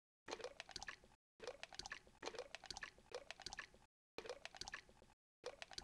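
Wet, squelching sound effect in quick repeating spurts, with a faint rise in pitch in each, broken by three short silent gaps.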